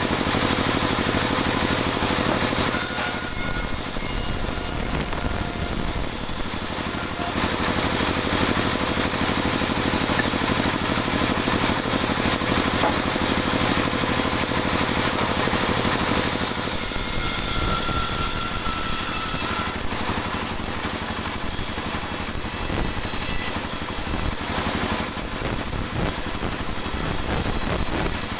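Band sawmill running continuously as its blade cuts dry teak lengthwise into 2 cm boards: a loud, steady machine noise with a strong high hiss.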